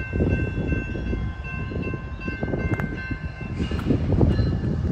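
Grade crossing warning bell ringing steadily over the low rumble of an approaching CSX intermodal freight train, with a louder rush of train noise coming in near the end.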